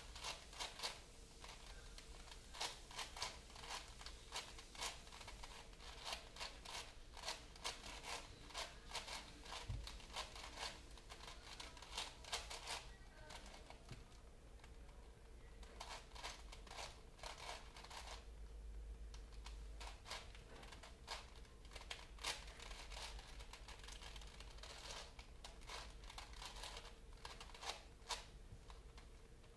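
Rapid plastic clicking and rattling of a puzzle cube being turned in the hands, in quick irregular runs with a couple of short pauses.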